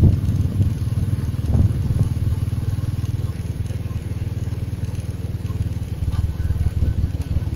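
A vehicle driving along an open highway: a steady low rumble of engine and road noise with a fast fluttering texture.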